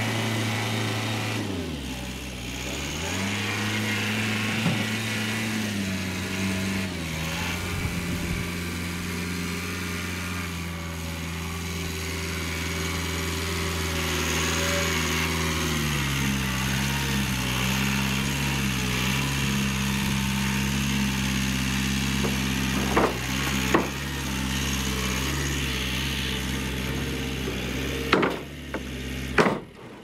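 Massey Ferguson 2705E tractor's diesel engine running, its speed dipping and stepping up and down as the front loader carries a stack of sawn lumber. A few sharp knocks come near the end.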